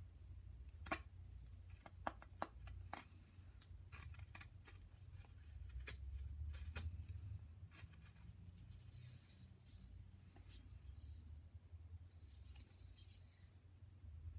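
Carving knife whittling a small wooden figure by hand: short paring cuts and sharp clicks as the blade takes off chips, most of them in the first half, faint over a low steady hum.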